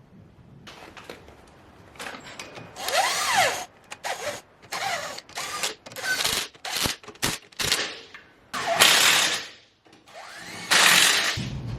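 Compressed air hissing in a string of short and longer bursts as the front air-ride bags are filled and let out, with thin whistling glides in some of the bursts.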